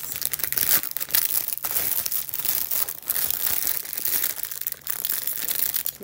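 Thin plastic packaging bag crinkling and crackling continuously as it is handled and pulled open around a fabric hat.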